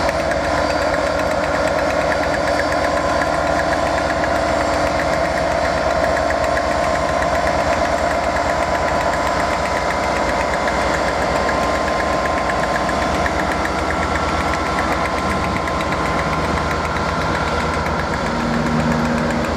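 Diesel railway engine idling steadily with a dense, even throb.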